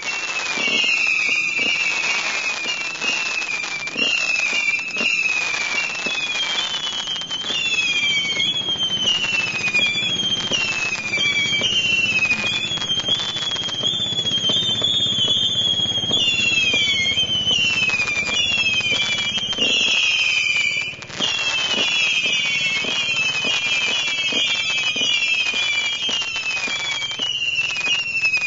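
"Cat Attack" firework going off continuously: many overlapping shrill whistles, each sliding down in pitch, over a steady crackle and many sharp pops. The sound drops out briefly about two-thirds of the way through, then resumes.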